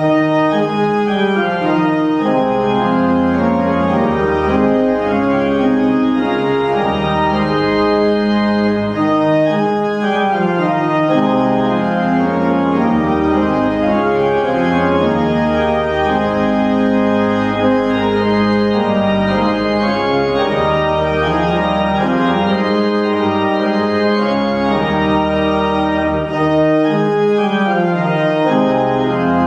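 Organ playing slow, sustained chords that change every second or so, starting abruptly at the outset: a closing postlude after the benediction.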